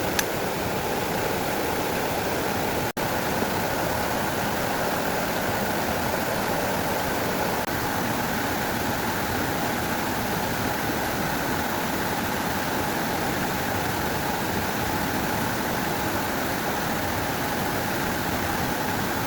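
Steady rushing of flowing water, like a stream or small waterfall, even and unbroken except for a momentary cut about three seconds in.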